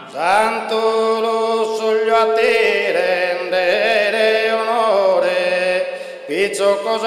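Sardinian canto a tenore: a group of male voices singing in close harmony, a lead voice over a steady low held chord. The sound opens with a rising glide, dips briefly near six seconds, and a new phrase starts with another rising glide.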